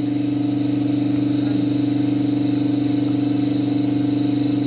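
Loud, steady mechanical drone of a running motor, unchanging in pitch, with a faint high whine above it.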